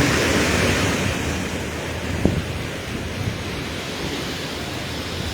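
Steady rushing noise of storm wind and rain, easing a little after the first second, with a single sharp knock about two seconds in.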